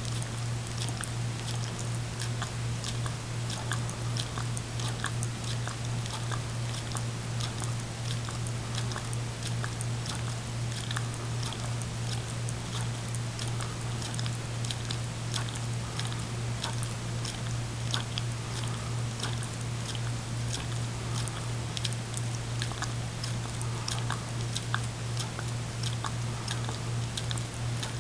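Greyhound licking frozen dog ice cream out of a small cup: a continuous, irregular run of wet tongue clicks and smacks against the cup, over a steady low hum.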